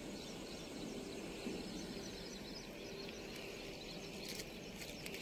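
Faint open-air ambience at the water's edge: steady low noise with a faint hum and scattered small bird chirps, and a few sharp clicks near the end.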